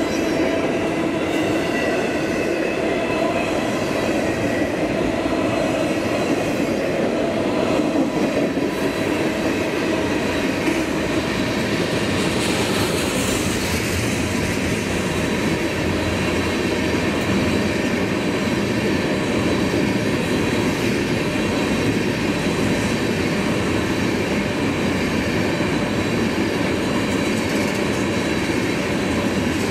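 Long freight train rolling past at close range, steel wheels running steadily on the rails. Autorack cars give way to covered hopper cars partway through.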